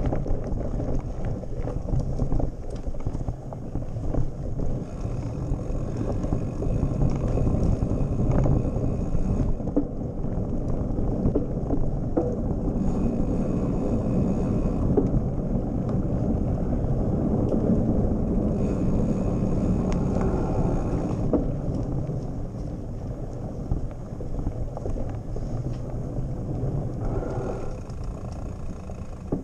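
Mountain bike ridden fast over gravel and a rough dirt trail: tyres crunching and the bike rattling over bumps, under a steady wind rumble on the bike-mounted camera's microphone.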